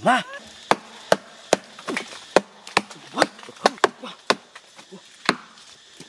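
Hatchet chopping into a tree trunk: a series of sharp wooden strikes, roughly two a second and unevenly spaced. A brief pitched call is heard right at the start.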